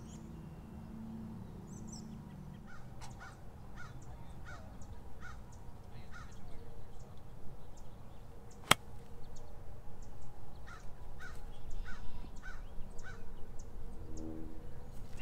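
A golf club strikes the ball once on a short chip shot, a single sharp click about two-thirds of the way through. A bird calls over it in a steady series, about two calls a second.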